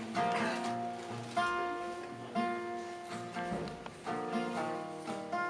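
Acoustic guitar strumming chords, one strum about every second, each chord ringing on until the next.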